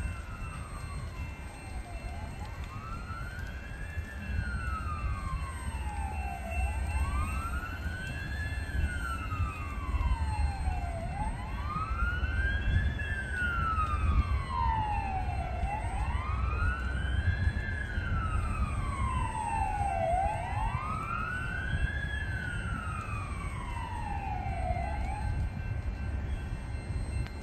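A fire engine's siren wails slowly, rising for about two seconds and falling for about two and a half, six times over, then cuts off near the end. Beneath it runs the steady low rumble of freight hopper cars rolling past on the track.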